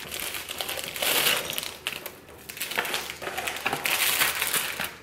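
Clear plastic packaging crinkling in the hands as it is opened to take out a hair clip, in uneven bursts.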